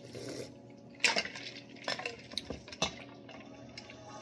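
Metal ladle clinking several times against a stainless steel bowl of iced fruit punch, with ice and liquid stirring.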